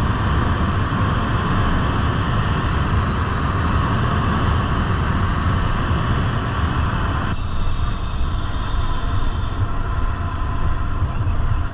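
Royal Enfield Continental GT650's 650 cc parallel-twin engine running at cruising speed, with a heavy rush of wind noise from riding. The sound turns suddenly duller about seven seconds in.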